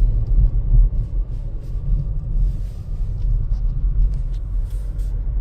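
A car driving slowly along an unplowed, snowy side street, heard from inside the cabin: a steady low rumble of engine and tyres, with faint scattered clicks.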